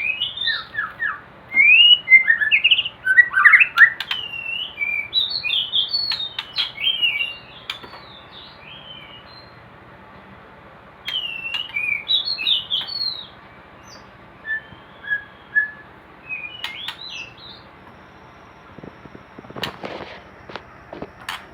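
White-rumped shama (murai batu) singing short, quick whistled phrases in bouts with pauses between. A few sharp clicks come near the end.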